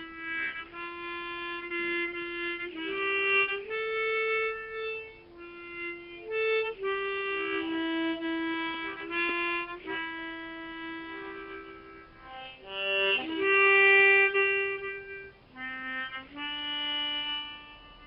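Harmonica improvising a slow melody of long held notes that step up and down, swelling loudest in the last third.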